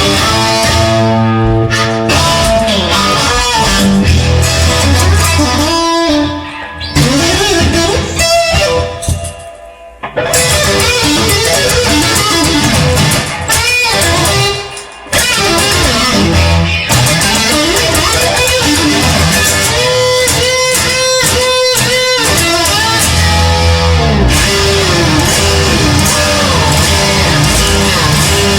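Electric guitar playing an instrumental break over rock backing music, with runs of quick notes and a few short stops.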